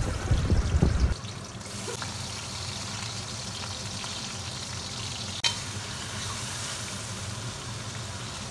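Sliced onions sizzling in hot oil in a pan: a steady frying hiss. A low rumble fills the first second, and there is a single sharp click about five seconds in.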